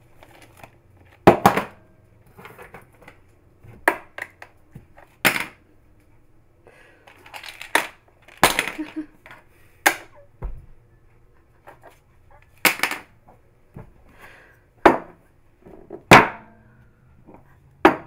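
A run of about ten sharp knocks and clatters, a few seconds apart, as small objects such as a phone and a small plastic bottle are swept off a countertop and hit the floor.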